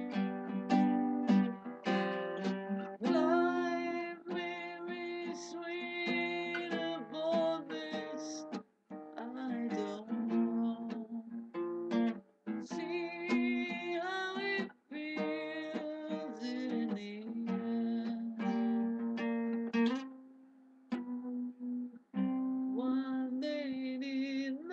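Guitar music: an instrumental passage of picked melody notes, some bent in pitch, over held chords, with brief pauses between phrases.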